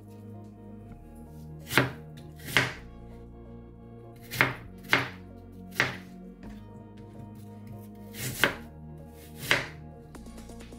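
Kitchen knife cutting a peeled apple into chunks on a wooden chopping board: about seven separate knife strikes on the board, at irregular intervals.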